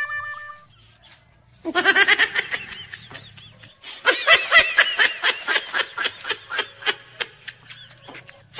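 High-pitched laughter in two bursts of quick pulses, the first short and the second longer starting about four seconds in. A music cue ends just at the start.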